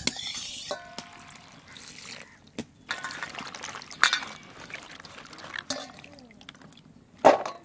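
Hands swishing cut flat beans in a steel bowl of water, water splashing and trickling. A short metallic ring comes about a second in, and a sharp knock near the end.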